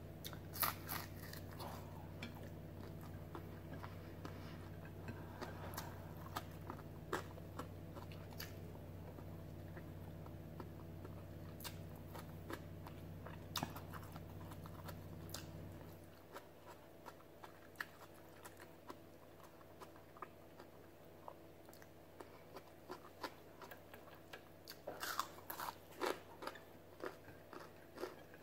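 A person chewing and crunching crisp lettuce and food close to the microphone, in scattered clusters of crunches. A low steady hum underneath stops about halfway through.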